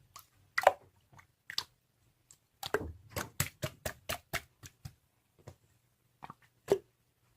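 Slime being squeezed and pressed by hand, giving a string of short wet pops and clicks, thickest in a quick run in the middle, with a last sharp pop near the end.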